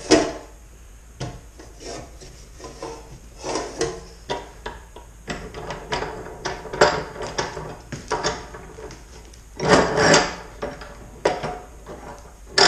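Parts of a new Porter-Cable 14-inch chop saw being handled and adjusted by hand: a string of clicks, knocks and scrapes of metal and plastic, the loudest scraping about ten seconds in.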